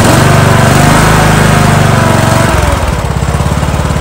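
Kohler Courage 19 HP lawn tractor engine running with a freshly cleaned carburetor and its mixture screw set half a turn out. It speeds up at the start, holds for about two and a half seconds, then drops back to a steady idle without hunting.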